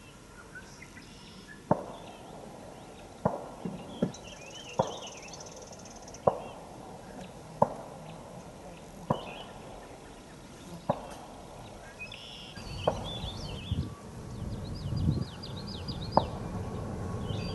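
Birds chirping over a series of sharp clicks about every second and a half. From about two-thirds of the way through, a low rumble builds: the EMD SD40-2 diesel locomotive approaching.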